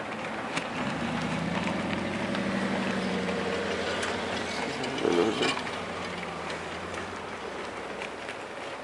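Snowplow truck engine running with a low steady drone over a noisy rumble. It builds about a second in and fades out near the end.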